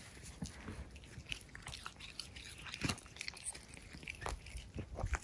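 Cats biting and chewing fresh cat grass close up: a run of irregular, wet crunching bites and tearing of the blades, the loudest bite a little before the middle.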